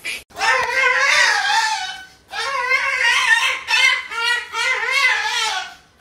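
A pet animal's long, high-pitched cries: two drawn-out calls, the second longer, with a wavering pitch.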